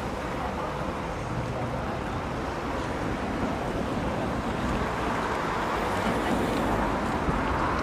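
Wind buffeting the microphone over steady outdoor noise by an open canal, with no clear single source standing out.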